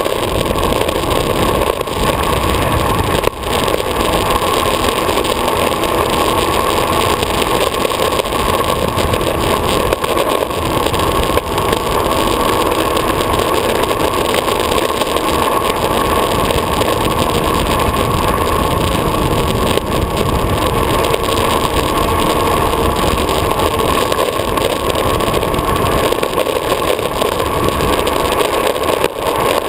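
Downhill longboard's wheels rolling fast on asphalt with wind rushing past: a loud, steady rolling noise heard from a camera mounted on the board's deck.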